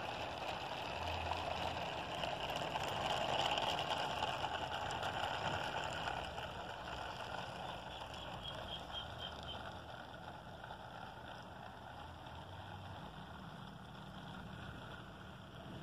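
HO-scale model freight train, boxcars and flatcars, rolling along the track with a steady running noise. It is loudest a few seconds in and fades gradually as the last cars move away.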